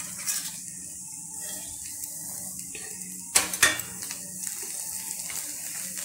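Vegetable filling sizzling steadily in a frying pan, a faint high hiss. About three and a half seconds in there are two sharp knocks a quarter second apart, a utensil against the pan.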